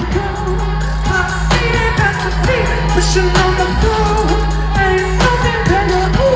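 Live band playing an electronic pop song through a concert PA, with a lead vocal over deep sustained synth bass and regular drum hits, heard loud from within the audience.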